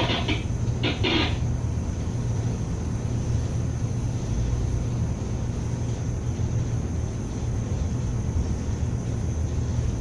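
Steady low rumble of a cargo ship under way at sea, with a brief rush of noise about a second in.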